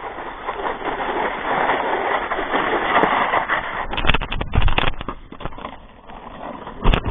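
A sled running fast down a snowy hill, heard from a GoPro riding along: a loud, steady rush of snow hiss and wind on the microphone, with several heavy bumps around four to five seconds in and a sharp thump just before the end.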